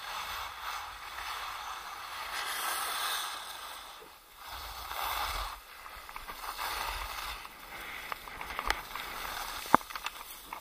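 Skis sliding and scraping over piste snow, a hiss that swells and fades with each turn, over a low rumble of wind on the microphone. Several sharp clicks come near the end, one much louder than the rest.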